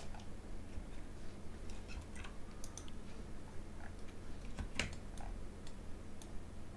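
Computer keyboard keys and mouse buttons clicking at irregular intervals, the loudest click about five seconds in, over a low steady hum.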